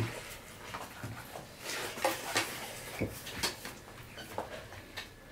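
Two people eating rice by hand: irregular short clicks and smacks of chewing and of fingers working food on plates, a few louder about two and three seconds in.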